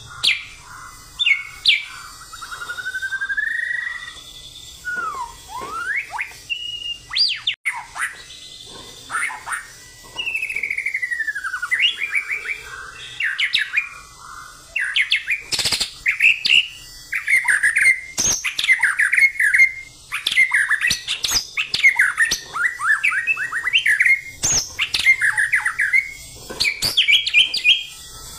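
Caged male white-rumped shama (murai batu) singing a loud, long, varied song: whistled phrases and pitch glides at first, then from about halfway a fast run of rapidly repeated notes with sharp clicking notes mixed in. This is the energetic, persistent 'fighting-style' (gaya tarung) delivery that bird-keepers prize.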